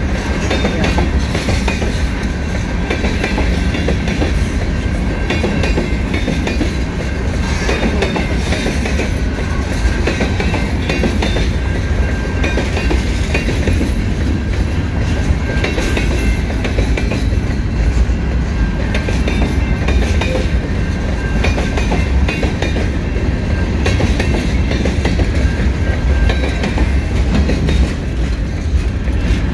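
Freight cars (covered hoppers, then boxcars) of a long freight train rolling past at close range: a steady low rumble with the wheels clicking and clattering over the rails, unbroken throughout.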